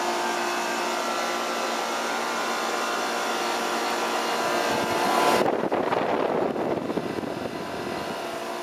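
2-ton Comfortmaker central air conditioner's outdoor condensing unit running: a steady compressor hum with the rushing of the condenser fan. About five seconds in, the high hiss drops away and an uneven fluttering rush takes over.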